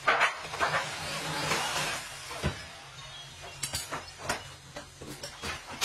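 Sharp metallic knocks and clicks of steel parts being handled and tapped on a stainless steel stove top, with a short hiss in the first couple of seconds.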